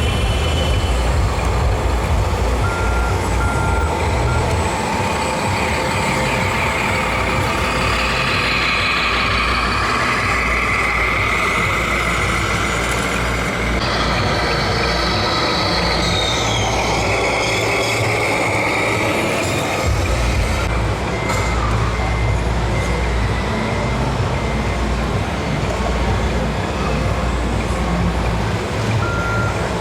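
Radio-controlled model trucks with sound modules playing truck noise and reversing beeps. Short high beeps come around three seconds in and again near the end, and a whine rises and falls for several seconds in the middle.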